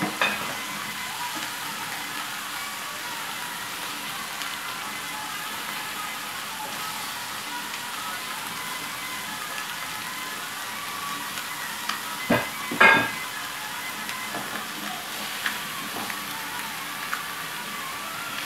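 Fish fillets sizzling steadily in oil and butter in a thin non-stick frying pan. A few sharp clinks of a metal fork against the pan as the fillets are moved, the loudest pair about two-thirds of the way through.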